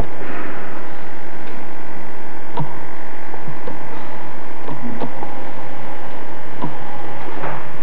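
Steady electrical hum with several fixed tones over hiss, the noise floor of an old VHS camcorder recording, with a few faint clicks and knocks.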